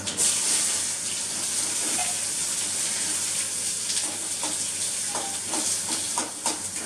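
Chopped onion hitting hot oil in a kadai and sizzling steadily as it fries. A spatula stirs it, with a few short scrapes and taps against the pan about four to six seconds in.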